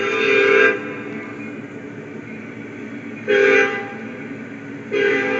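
Union Pacific locomotive's Nathan K5LLA five-chime air horn sounding a chord: a long blast ending under a second in, a short blast about three and a half seconds in, and another long blast starting near the end, with the chord still sounding more quietly between them. This is the long-short-long of a road-crossing warning.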